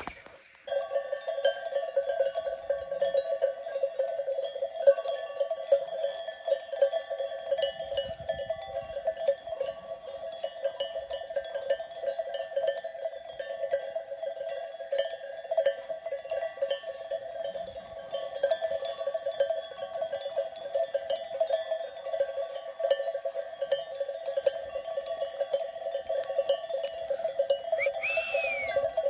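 Many sheep bells jangling without a break from a grazing flock, with a short whistle near the end.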